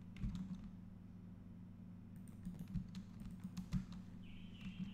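Scattered computer keyboard keystrokes and mouse clicks over a steady low hum. A faint high steady tone comes in about four seconds in.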